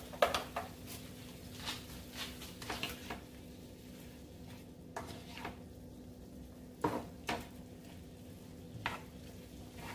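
A cooking utensil stirring a vegetable stir-fry in a pan: scattered scrapes and knocks against the pan every second or two, over a faint steady hum.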